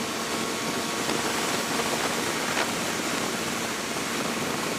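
Steady wind rush on the microphone of a motorcycle rider at road speed, with the motorcycle's engine running steadily underneath as a faint low hum.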